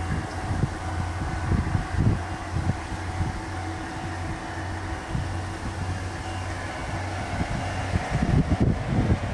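Kominato Railway diesel railcar's engine running with a steady low drone and a few held tones as the train moves off across the fields. Wind buffets the microphone throughout with low gusts, strongest near the end.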